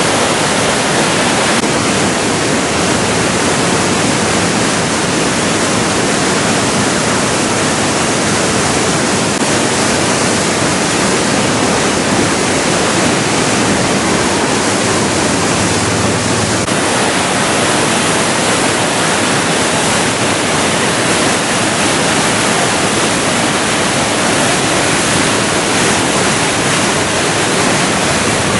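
Kelani River water rushing: a loud, steady roar of fast-flowing water.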